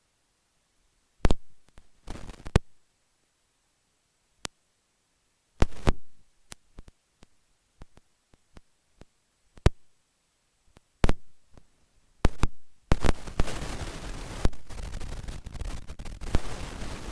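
Aircraft radio or intercom static: sharp clicks and short bursts of static with dead silence between them, then about four seconds of continuous static hiss near the end.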